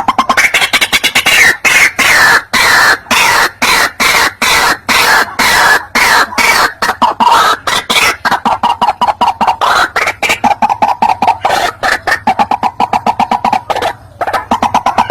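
White-breasted waterhen calling: a loud, rapid series of harsh repeated notes, several a second, that come faster and closer together in the second half, with a short break near the end. This is a trapping lure call meant to draw in rival waterhens.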